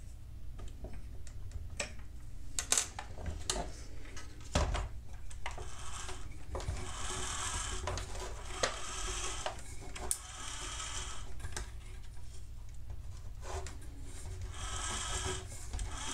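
Small electric drive motor of a 1/16 RC model compactor whirring in two short runs, from about six seconds in and again near the end, spinning the rear wheel hub to check that it turns true. Small clicks and rubbing of plastic parts being handled come between the runs.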